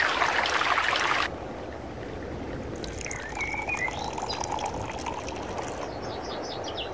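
A mountain stream rushing over rocks, cutting off suddenly about a second in. Then, more quietly, tea poured from a metal teapot into a glass tea glass, a thin trickling pour that stops before the end.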